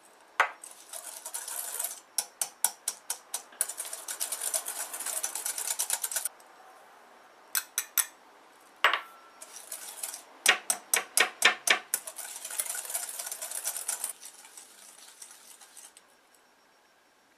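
Wire balloon whisk beating butter and granulated sugar in a glass bowl: runs of quick metallic clinks of the wires against the glass, about five a second, alternating with stretches of gritty scraping, with short pauses between bouts.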